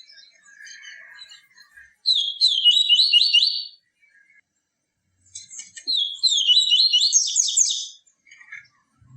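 Papa-capim, a Sporophila seedeater, singing two fast phrases of quickly repeated high notes. The first comes about two seconds in and a longer one runs from about five to eight seconds. Fainter, lower chirps come in the first two seconds.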